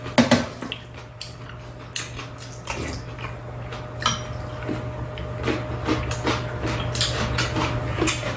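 Metal spoon and chopsticks clinking and scraping against bowls during a meal, in scattered short clicks, over a steady low hum.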